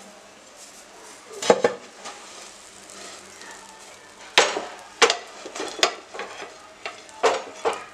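A nonstick frying pan clattering and scraping against a flat tawa griddle several times as an omelette is turned out onto it: one knock about a second and a half in, a cluster of knocks in the middle, and two more near the end. A faint sizzle from the hot griddle runs under them.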